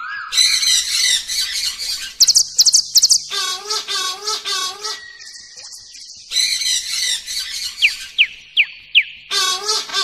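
Chicken squawking loudly in repeated bursts, with a quieter pause about halfway through.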